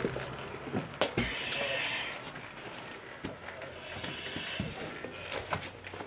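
Firefighters breathing through Scott SCBA masks: two hissing breaths from the air-pack regulators, about three seconds apart, with footsteps and a few knocks, the loudest a thump about a second in.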